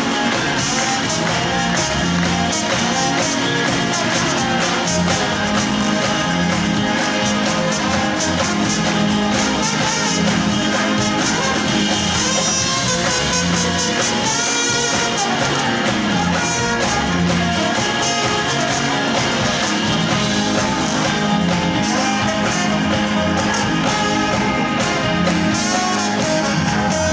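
Live rock-soul band playing an instrumental break, with a trombone solo over guitar, bass and drums.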